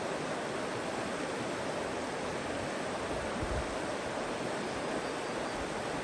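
Shallow river rushing steadily over rocky riffles: an even wash of flowing water.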